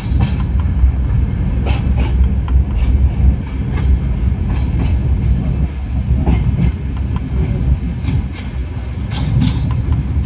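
Train running, heard from inside a passenger carriage by an open window: a steady heavy rumble, with irregular clicks and clacks from the wheels on the track.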